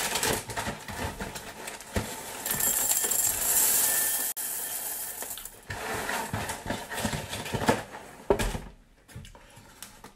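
Puffed rice cereal poured from its box into a glass bowl: a dense stream of small, hard pieces rattling onto the glass. It thins out about six seconds in. A few scattered rattles and a single knock follow near the end.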